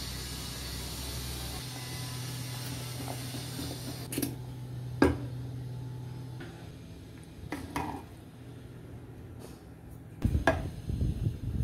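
Curry bubbling in an aluminium pot with a steady hiss, then a wooden spoon knocking against the pot a few times as it stirs, loudest about five seconds in. Near the end comes a cluster of knocks and clatter as pulp is tipped in from a glass bowl.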